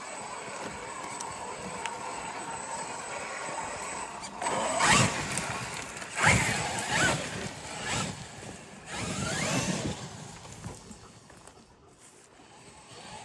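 Electric motor of a Traxxas X-Maxx RC monster truck revving in about five short bursts, each rising and falling in pitch, from about four seconds in; before that only a steady hiss.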